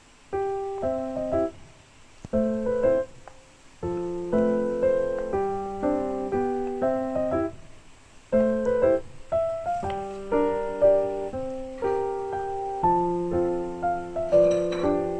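Background piano music: a light tune played in short phrases, with brief pauses between them.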